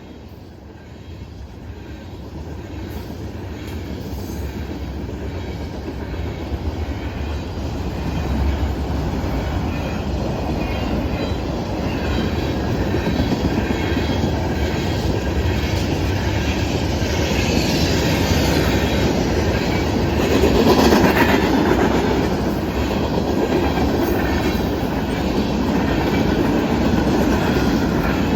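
Norfolk Southern manifest freight train approaching and passing, growing steadily louder over the first dozen seconds and staying loud as the cars roll by, with the loudest moment about 21 seconds in.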